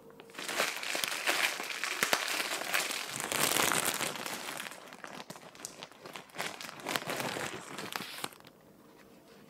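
Thin plastic bread bag crinkling and rustling as hands open it and reach in to the sliced loaf, busiest in the first half and dying away near the end.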